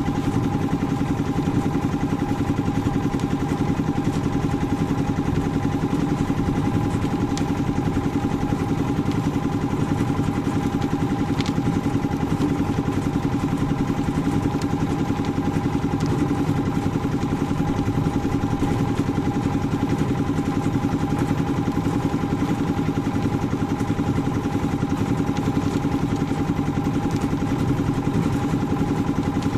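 Engine of a portable concrete mixer running steadily at an even speed, with a few faint ticks.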